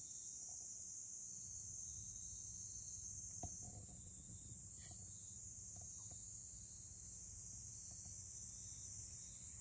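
Faint steady high-pitched hiss, like distant insect chirring, over a low rumble, with a few faint ticks and a brief faint chirp about five seconds in.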